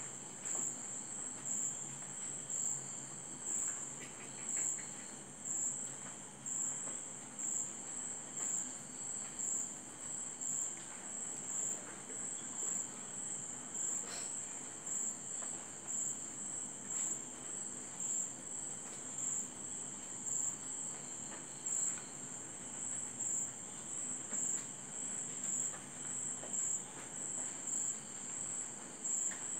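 Cricket chirping steadily, a high trill that pulses in an even rhythm, a little more than once a second.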